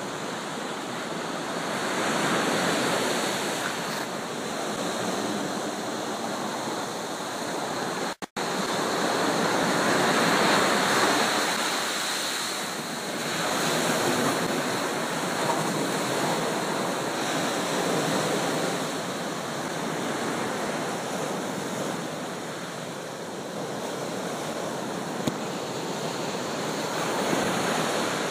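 Surf breaking on a dark sand and pebble beach, a steady wash of waves that swells and eases every few seconds, with wind buffeting the microphone.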